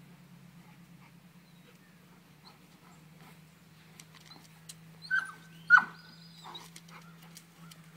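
Dog giving two short, high yelps about five seconds in, the second one louder and falling in pitch, excited while hunting a chipmunk hiding under a car. A faint steady low hum runs underneath.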